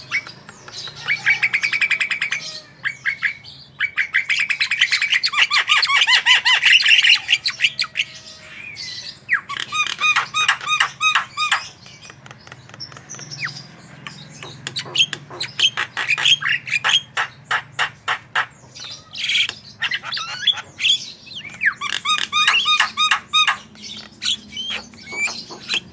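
Javan myna singing in long bouts of fast rattling trills, chattering and short repeated whistled notes, a varied song that mixes in mimicked calls of other birds.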